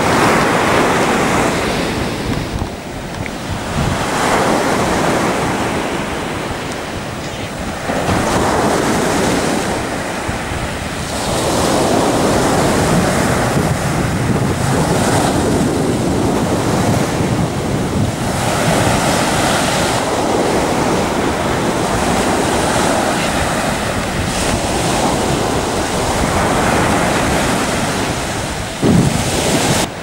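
Sea surf breaking on a sandy beach, the wash swelling and falling every few seconds. Wind buffets the microphone throughout as a low rumble.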